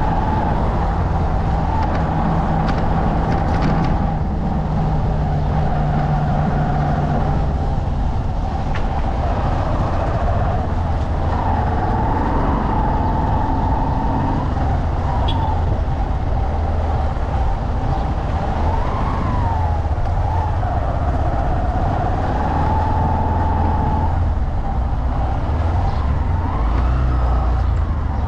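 Motorcycle engine running while riding, a steady low rumble with a whining tone that rises and falls as the throttle changes.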